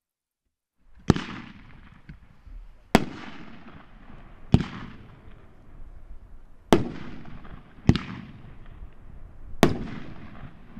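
Dominator 500-gram consumer fireworks cake firing: after about a second of quiet, six sharp loud bursts go off at irregular intervals of one to two seconds, each trailing off.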